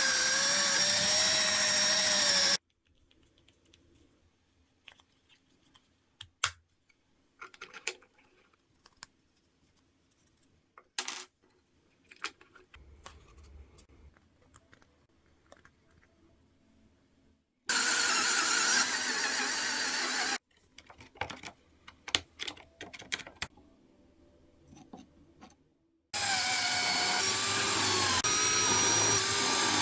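A power tool running in three bursts of a few seconds each, starting and stopping abruptly, its pitch wavering. Between the bursts come small clicks and taps of parts and tools being handled.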